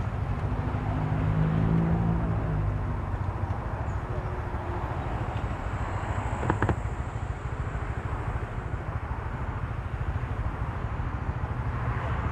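Riding on a motorcycle with heavy wind buffeting on the microphone and the engine note audible in the first few seconds. There is a short click about six and a half seconds in.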